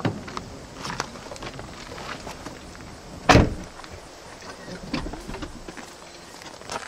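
A car door shutting with a single heavy thump about halfway through, among smaller knocks and clicks.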